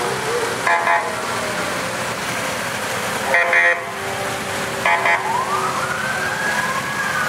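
Police motorcycle sirens: three short, horn-like blasts, then near the end a siren wail rises and holds high, with a second wail rising behind it.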